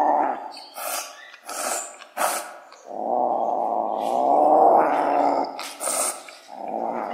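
Sunda leopard cat kitten growling and spitting: long, low growls, one at the start, a longer one in the middle and another near the end, broken by several short, sharp spits. A defensive threat from a wild cat.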